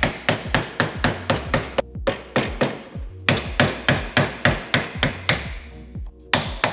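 Quick metallic hammer taps on a flathead screwdriver set in the track of a Turbosmart blow-off valve's collar, knocking the collar loose. They come in runs of about four taps a second, with two short pauses and a last pair of taps near the end.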